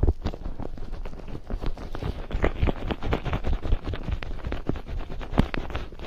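Fingers massaging a microphone's ear with petroleum jelly: a dense, irregular run of close clicks and rubbing strokes.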